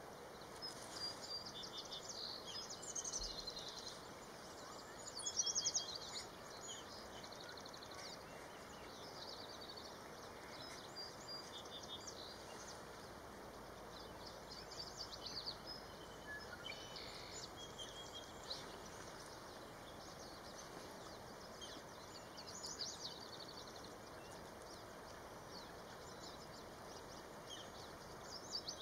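Songbirds singing on and off: short chirps and trills over a steady outdoor hiss, with the loudest trill about five seconds in.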